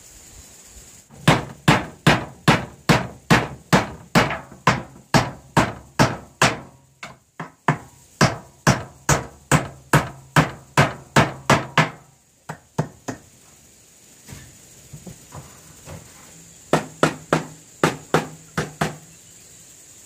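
Hammer driving nails to fix a rusty corrugated metal sheet onto a wooden box: a long run of steady blows, about two a second, then a pause and a shorter, quicker run near the end.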